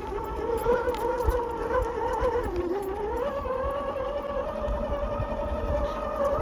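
Electric motor and drivetrain of a radio-controlled scale Mitsubishi Pajero whining, the pitch wavering up and down with throttle and load, over a low rumble with a few knocks.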